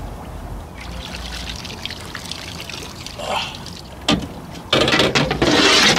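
Lake water lapping and sloshing around a man in the water at the boat's stern. About five seconds in it turns to loud splashing, with water streaming off him as he hauls himself up out of the water onto the boat.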